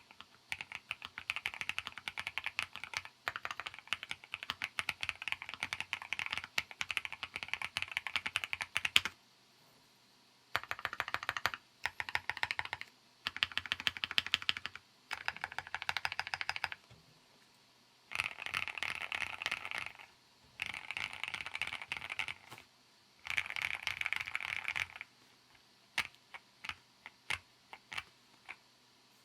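Sea75 custom mechanical keyboard being typed on: fast continuous keystrokes for the first nine seconds or so, then a pause, then several short bursts of typing, ending with a few single key presses.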